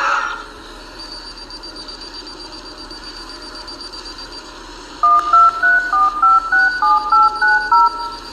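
DeLorean time machine's time-circuit sound effect: a hiss fades out in the first half second, then a steady electronic hum with a thin high whine, and from about five seconds in a quick run of two-tone keypad beeps stepping up and down in pitch, like a destination time being keyed in.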